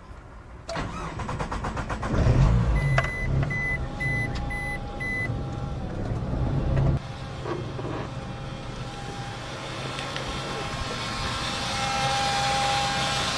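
GAZelle van's Chrysler four-cylinder engine cranked by the starter and catching about two seconds in, then idling, with five short beeps soon after it starts. Over the idle runs a steady high buzzing whine, growing louder near the end: the electric fuel pump buzzing loudly, a sign of the failing pump that has cost the van its power.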